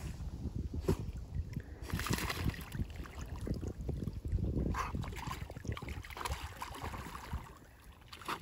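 A dog swimming near the shore, its paddling sloshing and splashing the water in uneven bursts, strongest about two seconds in and again from about five to seven seconds.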